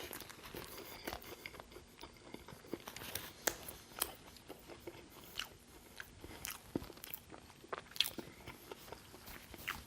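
Close-miked chewing of a Burger King Roadhouse King burger with onion rings and bacon: irregular crunches and sharp mouth clicks.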